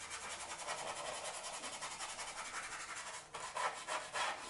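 Flat bristle brush scrubbing back and forth on sanded pastel card (Pastelmat), blending and smoothing grey pastel: a dry scratchy rubbing in rapid short strokes, turning into slower, louder strokes, about three a second, near the end.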